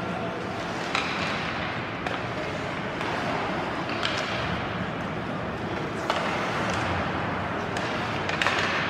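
Ice hockey play heard from the stands of a rink: a steady hum of arena noise broken by four sharp clacks of stick and puck, each a few seconds apart.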